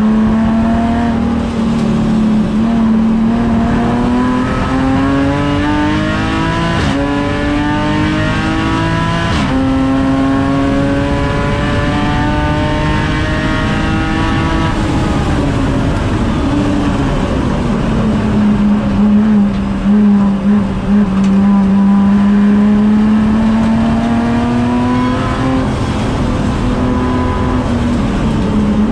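The Rotrex-supercharged BMW M54B30 inline-six of an E46 330i, heard from inside the cabin, pulling hard with revs climbing. The pitch drops in quick steps as the 8HP automatic upshifts, about seven and nine and a half seconds in. The revs then fall as the car slows around fifteen seconds, run lower and steadier for a while, and climb again near the end.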